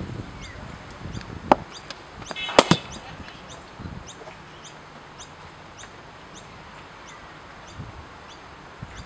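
A cricket ball bowled and played in a practice net: one sharp crack about a second and a half in, then a quick burst of louder clacks with a brief metallic ring a second later. A faint high chirp repeats about twice a second behind it.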